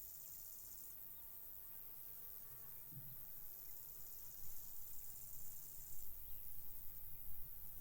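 Crickets chirping in high-pitched bouts a few seconds long, stopping and starting again, with gusts of wind rumbling on the microphone from about halfway through.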